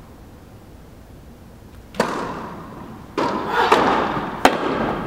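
Tennis rally: four sharp knocks of the ball off the racket strings and the court, each ringing on in the echo of an indoor tennis hall. The first comes about two seconds in and the other three close together near the end.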